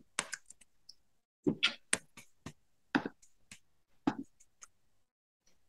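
Computer keyboard keystrokes: a string of irregular clicking taps for about four and a half seconds, then they stop.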